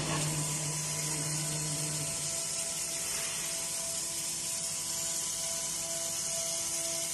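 Vertical glass drilling and milling machine at work: the spindle motor runs with steady whining tones under a constant hiss of coolant water spraying onto the glass as the bit cuts. A low hum drops away about two seconds in.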